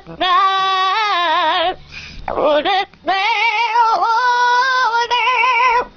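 A pet parrot singing: long held, warbling notes with a fast, even vibrato, in three phrases with short breaks.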